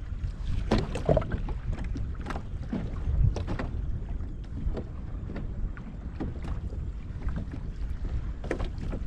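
Wind buffeting the microphone with a steady low rumble, while small waves slap and splash irregularly against a fishing kayak's hull.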